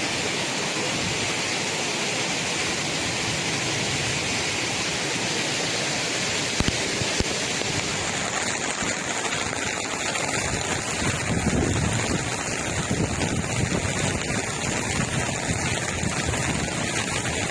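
Floodwater rushing, heard as a steady noise of moving water, with two brief knocks partway through.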